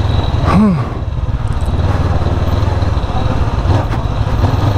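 Motorcycle engine running steadily, with a short voice-like hum rising and falling in pitch about half a second in.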